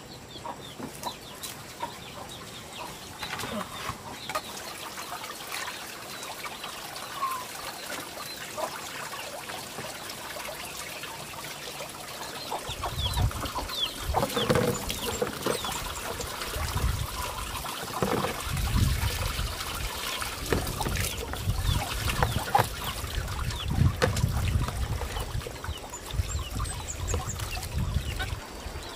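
Chickens clucking while water trickles and pours as vegetables are washed by hand; from about halfway through, heavier splashing and knocking of the water and basin.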